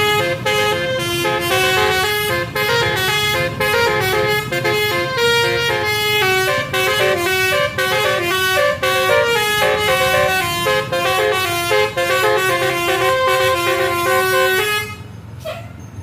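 Tour bus's telolet horn playing a quick melody of changing notes, which stops about a second before the end.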